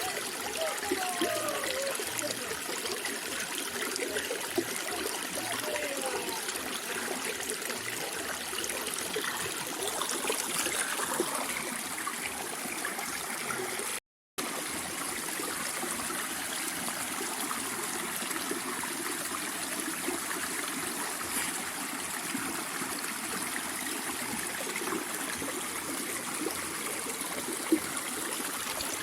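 Running water of a stream, trickling and splashing steadily, cutting out to silence for a split second about halfway through.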